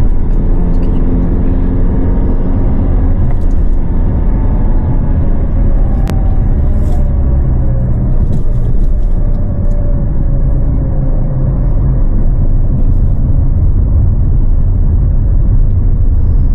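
A car's road and engine noise heard inside the cabin while driving: a steady low rumble.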